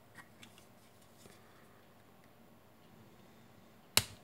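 A few faint clicks and light scrapes, then one sharp loud click near the end, as a spudger is worked into the seam of a small USB wall charger's plastic case.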